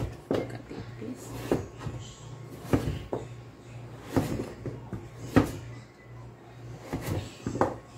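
Cleaver chopping taro on a wooden cutting board: uneven knocks of the blade striking the board, about one a second, over a low steady hum.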